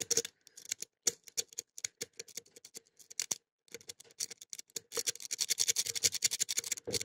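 Lock-pick rake scraped in and out of a Blossom pin-tumbler padlock's core, the pins clicking in irregular taps, then a fast run of clicks near the end. The pins keep jamming, and the picker thinks he has overset a pin.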